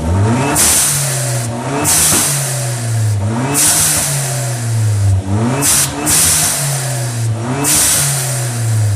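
Turbocharged 2.0-litre four-cylinder of a Hyundai Genesis Coupe 2.0T being revved in repeated quick blips, with an aftermarket blow-off valve venting in a loud hiss each time the throttle closes, about six times.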